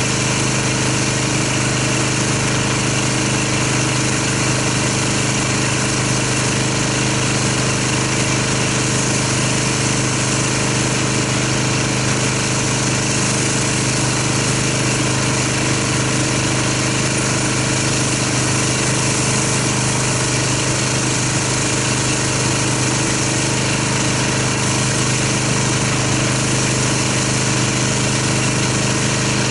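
Pressure washer running steadily while its spray wand rinses soap foam off a car, with an even hiss of the water jet over the motor's low hum.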